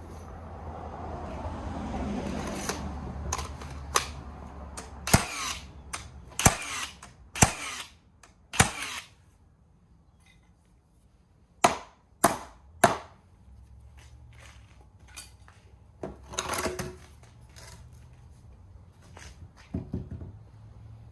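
Nails being driven into wood framing: about a dozen sharp bangs in uneven clusters, roughly a second apart, after a few seconds of handling noise.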